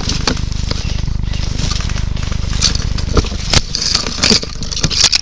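Dry leaves crunching and twigs snapping and scraping against a gun-mounted camera as it is pushed through dense brush, in irregular sharp crackles. Under them runs a steady low rumble of handling or wind noise on the microphone.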